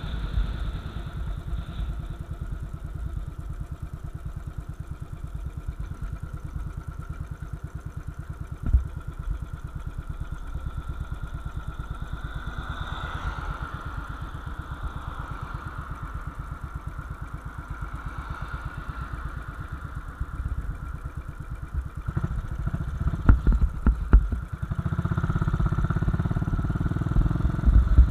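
Royal Enfield Bullet 500's single-cylinder engine running at low revs with its steady pulse while the bike slows and waits in traffic. A few sharp clicks come near the end, then the engine grows louder as the bike pulls away.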